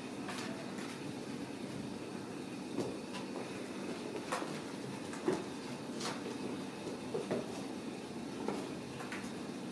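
Steady low room rumble with scattered soft knocks and taps as Ragdoll cats move about on a carpeted cat tower.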